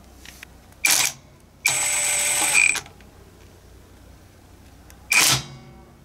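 Cordless impact wrench driving the wheel's lug bolts in, in three bursts: a short one about a second in, a longer one lasting about a second, and another short one near the end.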